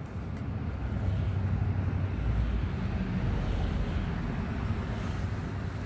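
Road traffic on a highway: a steady low rumble with a tyre hiss that swells about two seconds in and fades toward the end.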